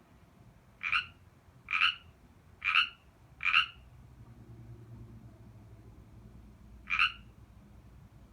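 A frog croaking: four short croaks about a second apart, then a pause and a single croak near the end.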